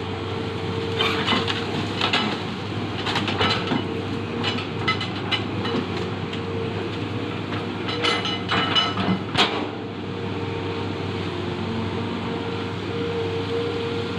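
Hitachi ZX200 hydraulic excavator's diesel engine running steadily, with a run of sharp metal clanks and scrapes from about one second in to about ten seconds, then just the engine.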